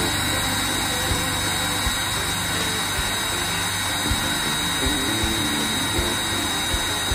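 Hand-held electric drill running steadily under load, its bit boring through the wall of a steel rectangular tube, with a steady high whine.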